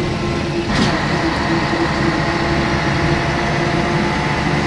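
Scania K113CRB bus's 11-litre straight-six diesel running steadily, heard from inside the saloon, with a brief knock about a second in.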